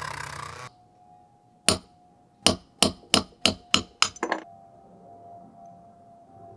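A cordless rotary tool with a sanding drum runs and cuts off abruptly. Then a hammer strikes a steel punch about eight times in sharp, ringing metal taps, the last few in quick succession, knocking apart an old watchmaker's vise's clamping handle.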